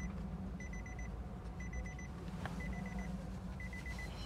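Electronic warning beeper sounding in quick bursts of about five high pips, one burst a second, four times, over a steady low hum.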